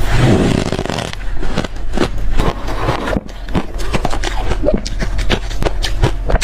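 Hard, freezer-cold crushed ice being chewed in the mouth: a quick, irregular run of crisp crunches.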